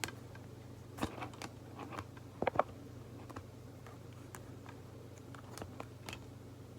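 Light clicks and taps of packaging being handled, with a louder cluster of two or three clicks about two and a half seconds in, over a steady low hum.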